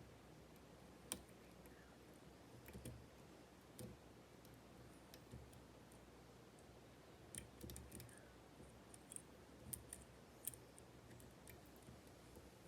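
Faint, scattered clicks and ticks of a lock pick working inside a Kaba 8 dimple lock cylinder, with one sharper click about a second in and a small cluster of clicks later on.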